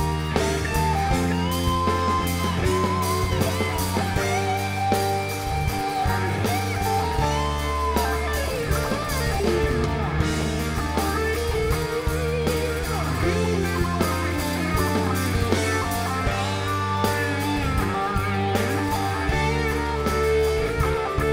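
Live rock band music: electric guitar carrying a melodic line over bass and drums, with a steady beat.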